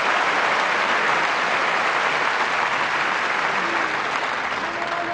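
Tennis crowd applauding a point, a dense, steady clapping that starts to die down near the end.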